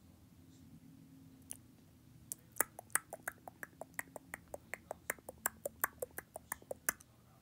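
Rapid, even run of sharp clicks, about six a second, starting about two seconds in and lasting some four and a half seconds: a fire alarm's volume control being clicked down step by step.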